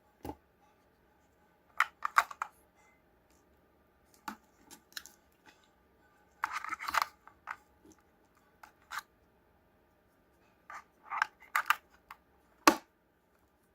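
Small plastic parts and packaging being handled: irregular clicks, snaps and short scrapes, in a few clusters with quiet gaps between them.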